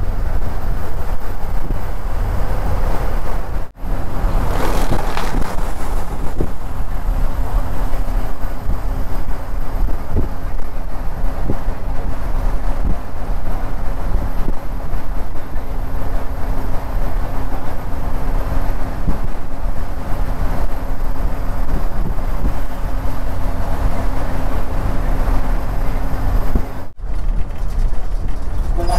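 Express bus driving, its engine and road noise heard from inside the cabin as a steady low rumble. The sound breaks off for a moment twice, about four seconds in and near the end.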